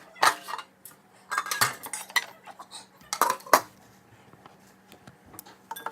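Dishes and cutlery clattering and clinking in a kitchen sink as they are handled during dishwashing, in three short spells of sharp clinks.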